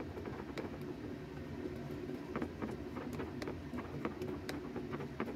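A metal utensil clicking and scraping against a ceramic bowl while stirring a thin flour-and-egg-yolk batter, in quick irregular taps as the lumps are mixed out, over a steady low hum.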